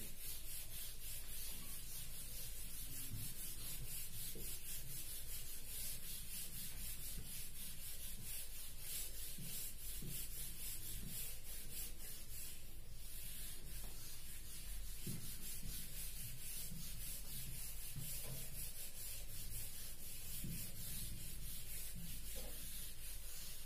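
A hand-held whiteboard eraser rubbing across the board in steady, repeated back-and-forth strokes, wiping off marker writing.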